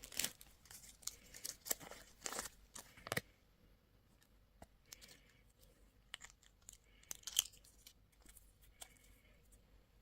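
Plastic candy and toy packaging being crinkled and torn open by hand in short, scattered rustles. The rustles come thickest in the first three seconds, then give way to a few light taps and rustles.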